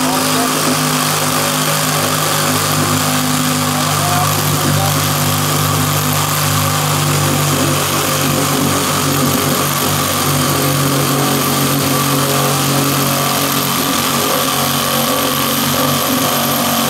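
Electric drill driving a curve saw attachment, running continuously with a steady motor hum and the noise of the blade sawing through a speaker cabinet's wooden baffle to enlarge the driver hole.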